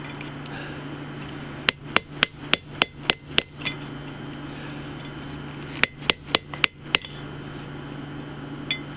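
Hand hammer striking a punch driven into a hot, flattened steel railroad spike on an anvil, punching the hole that will catch a bottle cap. There are two runs of sharp metallic strikes, about seven and then five, three or four a second, with a pause between them.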